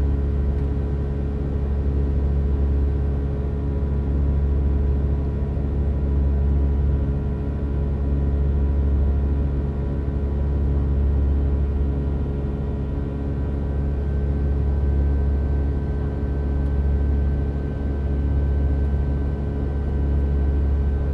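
Steady cabin drone of a Boeing 757 climbing after takeoff: a deep engine and airflow rumble with a few steady whining tones over it, one high tone growing stronger about halfway through.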